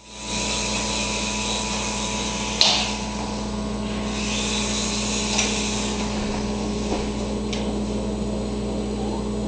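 Small electric motor and rotors of a toy helicopter whirring steadily, with a sharp knock about two and a half seconds in and fainter taps later.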